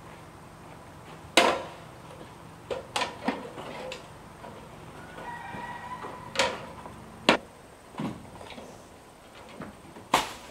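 Irregular metallic knocks and clanks from feet and hands on the rungs of an aluminium extension ladder as a person climbs it onto a roof, with the loudest strikes about a second in, past the middle, and near the end.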